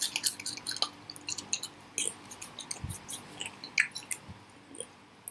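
Close-up mouth sounds of chewing a crispy fried cricket: many small irregular wet clicks and crackles.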